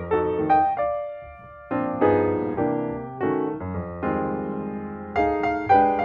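Background piano music: notes and chords struck and left to ring, with a brief lull about a second and a half in.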